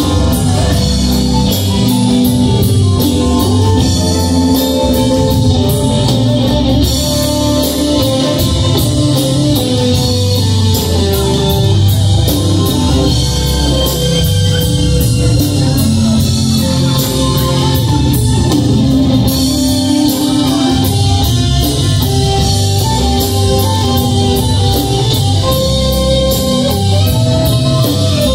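Live band playing a rock song with drum kit, electric bass, electric guitar and congas. A steady hi-hat ticks throughout, dropping out briefly twice, over a strong bass line.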